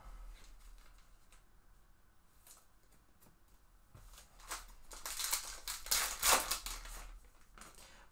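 Soft clicks of trading cards being handled and set down on a table, then about four seconds in a few seconds of loud crinkling and ripping as a foil trading-card pack is torn open and its cards slid out.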